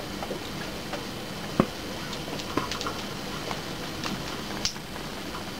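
A pause in a small room: low steady room tone with a scattering of faint small clicks and ticks, the sharpest about a second and a half in.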